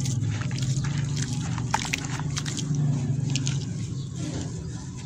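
Wet sand-and-cement shapes crackling and crumbling as hands break them apart in a basin of water, with drips and sloshing. The crackles come thick for the first three seconds or so, then thin out. A low steady hum runs underneath.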